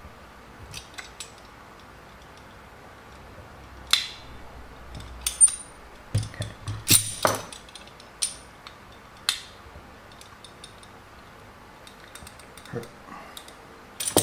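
Scattered clicks and clacks of small hard plastic parts, RC car suspension arms, being handled and set down on a hard surface. A quick run of several knocks comes about six to seven seconds in.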